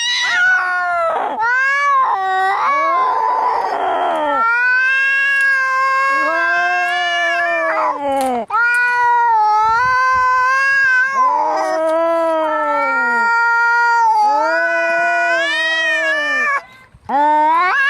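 Angry domestic cats yowling and caterwauling as in a fight: long, drawn-out howls that waver and bend in pitch, one after another, with a harsher, noisier stretch about three seconds in and a brief break near the end.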